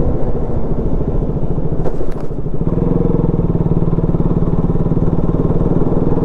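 Sport motorcycle's engine running steadily as it is ridden along. About two seconds in, a few clicks and a short dip break the sound, and then the engine settles into an even, steady note.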